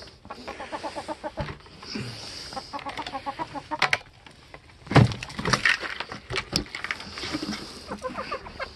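Chickens clucking in runs of quick, evenly repeated clucks, with a few clicks and clatters of handling and one loud thump about five seconds in.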